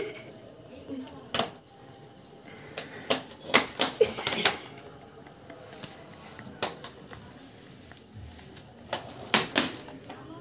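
Crickets chirping in a steady, rapid high pulse, with several sharp taps or slaps at uneven intervals, the loudest clustered about four seconds in and again near nine and a half seconds.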